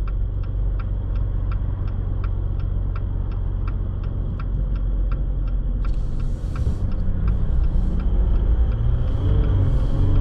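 Jeep Wrangler JL heard from inside the cabin: a low engine rumble with a turn signal ticking steadily about three times a second for the first six seconds. A brief hiss follows, then the engine note rises as the Jeep pulls away near the end.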